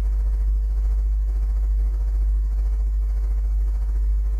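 Steady low electrical hum with faint even overtones, unchanging throughout, typical of mains hum picked up by the recording setup.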